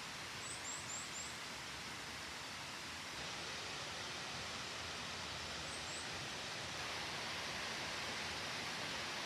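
Steady rush of a mountain stream and small waterfall, getting a little louder about three seconds in and again near seven. A small bird gives four quick high chirps about half a second in and two more around six seconds in.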